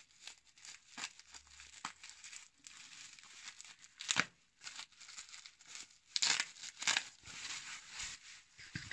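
Bubble wrap being slit with a folding knife and pulled open by hand: irregular crinkling and rustling of the plastic, with louder crackles about four seconds in and again around six to seven seconds.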